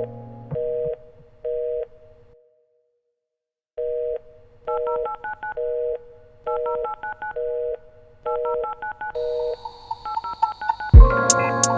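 Telephone tones: short two-tone beeps repeating about every half second, with keypad dialing tones mixed in, and a pause of about a second and a half early on. Loud music comes in near the end.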